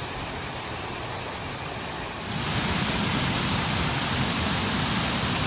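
Steady rushing noise, growing louder about two seconds in and then holding level.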